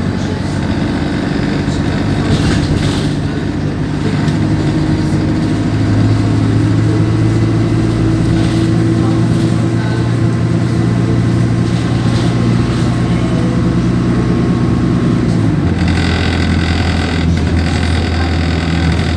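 Alexander Dennis Enviro200 bus's diesel engine pulling, heard from inside the bus. Its drone rises in pitch over the first few seconds and holds steady. About three-quarters of the way through it drops suddenly to a lower pitch and stays there, as the Allison automatic gearbox shifts up.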